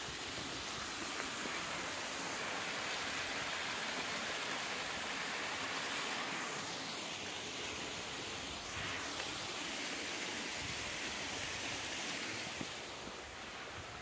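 Steady rushing hiss of falling water from a snowmelt waterfall, easing slightly near the end.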